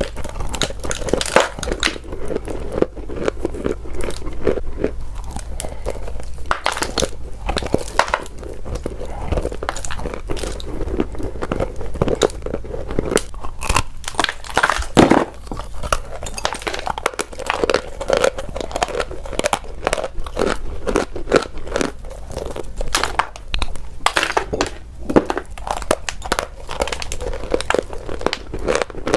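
Sweet chalk crunching: a dense, continuous run of dry crackling crunches with no pause.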